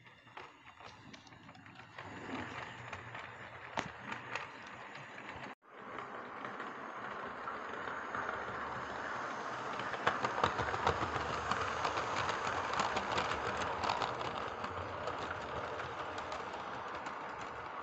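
Model trains running on the layout's track: the small electric motor's running noise with a patter of wheel clicks over rail joints. The sound drops out abruptly about five and a half seconds in, then comes back steady and grows louder a few seconds later.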